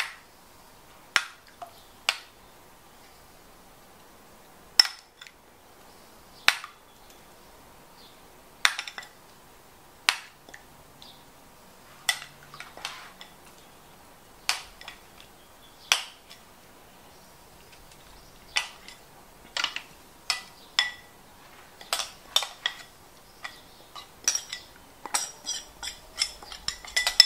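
Metal spoon clinking and scraping against a ceramic bowl as a butter seasoning is spooned out, in scattered sharp clinks every second or two that come closer together in the second half.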